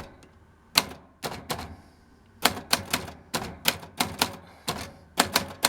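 1966 Olympia Socialite manual typewriter being typed on: a series of sharp, irregular key strikes, with a short pause about two seconds in followed by a quicker run of strikes.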